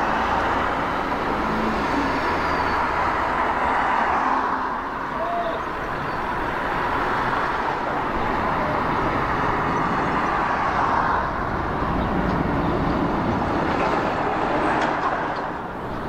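Jet engines of a twin-engine airliner at high power, a steady, loud roar of jet noise through takeoff and a steep climbing turn.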